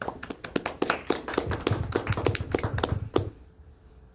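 A small group of people applauding in a small room, irregular hand claps lasting a little over three seconds.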